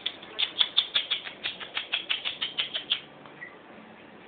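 Kittens and cats eating from a shared plate: quick, wet smacking and lapping clicks, about six a second, that die down about three seconds in.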